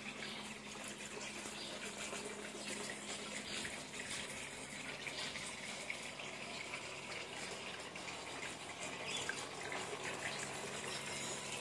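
Water from a hang-on-back aquarium filter's outflow lip splashing steadily into the tub's water surface, over a faint steady hum.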